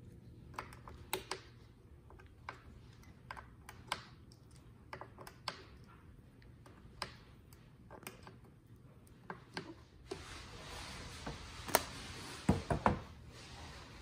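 Light plastic clicks and taps as empty lip balm tubes are set one by one into the holes of a plastic filling tray, irregular, a few a second. Near the end come a few louder knocks close together as the tray is handled.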